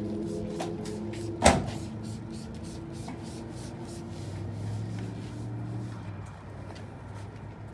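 A single sharp knock about one and a half seconds in, over a low steady hum.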